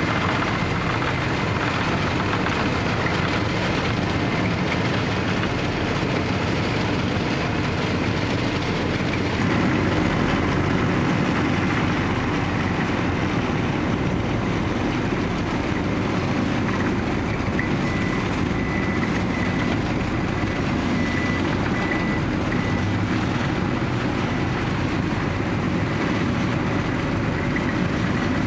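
Heavy road-paving machinery running steadily: an asphalt paver's diesel engine, then, after a change about ten seconds in, a Kawasaki K20WII rubber-tyred road roller, a little louder and deeper. A faint high whine comes and goes in the second half.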